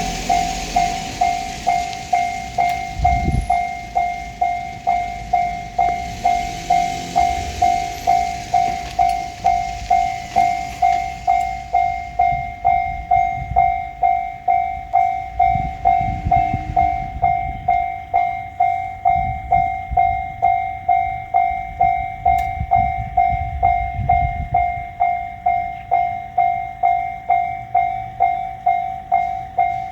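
Japanese level-crossing alarm bell ringing a steady electronic ding at an even pace of about one and a half a second. Over it, a passing train's running noise fades away about twelve seconds in, and there is low rumbling later on.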